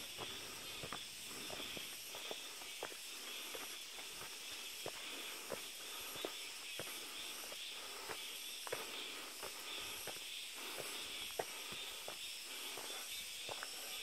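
Footsteps on a dirt forest path: soft, irregular steps about one or two a second, over a steady high hiss.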